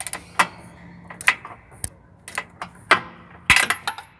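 Steel box-end wrench clinking against a bolt and the metal around it as it is fitted and worked to break the fastener loose, a series of sharp, uneven clinks.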